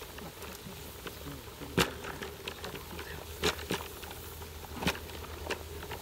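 Water boiling hard in a wide metal wok: a steady bubbling hiss with a few sharp pops, the loudest just under two seconds in.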